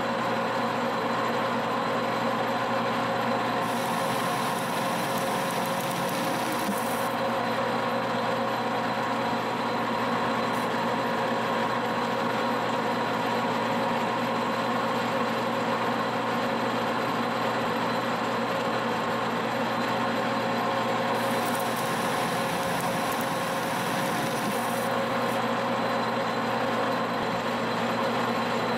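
Monarch engine lathe taking a turning cut on a steel spindle with a carbide insert: a steady gear whine from the running machine under the hiss of the cut. The cutting noise turns brighter and hissier twice, about four to seven seconds in and again past twenty seconds.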